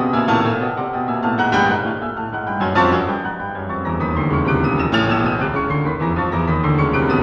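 Background classical piano music, a busy piece of quick runs of notes.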